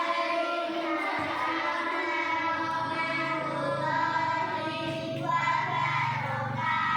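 A group of children singing together in long held notes.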